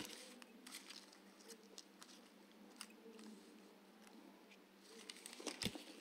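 Near silence: room tone with a few faint clicks and rustles from small handling at a work table.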